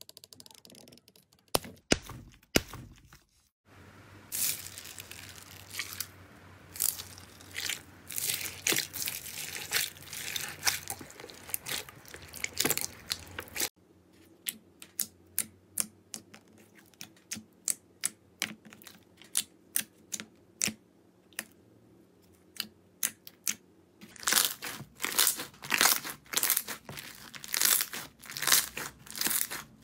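Slime being squeezed, pressed and stretched by hand, close to the microphone. There are runs of dense crackling and clicking, and in the middle a series of sharp pops about twice a second as balls set in clear slime are pressed one after another.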